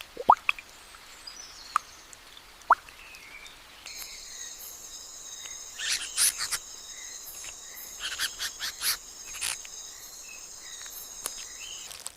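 Forest insect chorus: several steady, high-pitched trills begin about four seconds in and hold steady, with short crackling rustles over them. A few single water drips sound before the trills start.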